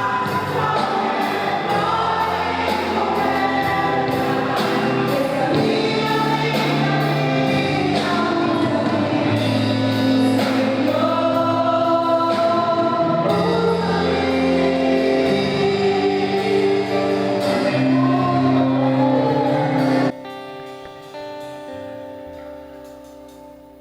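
Live gospel worship music: group singing over a band with a steady beat. The band stops abruptly near the end, leaving a held chord fading out.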